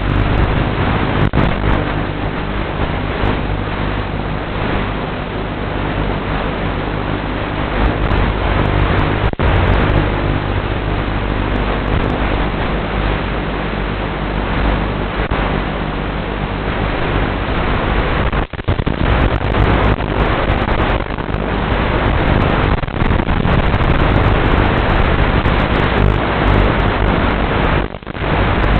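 Loud steady hiss with a low hum underneath, carried over the quadcopter's analog 5.8 GHz FPV video link and recorded in the goggles. It dips out briefly three times.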